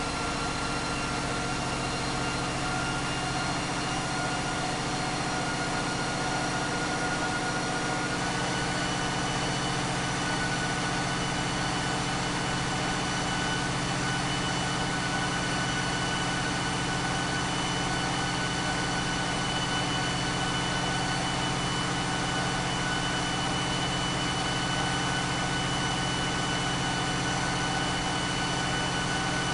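Caterpillar 3516B V16 diesel engine running steadily on an engine dynamometer, its pitch creeping slightly higher over the half minute.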